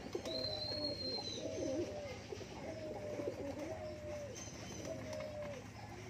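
Several domestic pigeons cooing, their calls overlapping and repeating every second or so. A thin high whistled note sounds about half a second in and lasts about a second.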